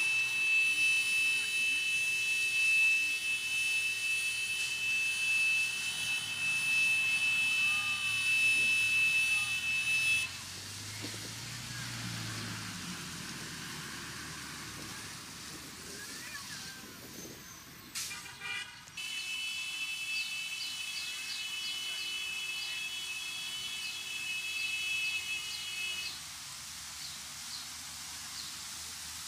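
Water jetting from an opened street fire hydrant, heard as a hiss of spray. For the first ten seconds and again from about twenty to twenty-six seconds it is covered by a steady high-pitched tone, which stops abruptly each time.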